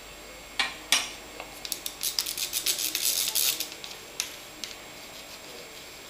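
Small metal parts of a spinning fishing reel clicking and clinking as the reel is taken apart by hand: two sharp clicks, then a quick run of light metallic clinks for about two seconds, and a couple of last ticks.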